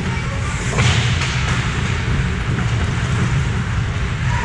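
Ice hockey play in an indoor rink: a steady low rumble with the hiss and scrape of skates on the ice, and a brief louder burst of noise about a second in.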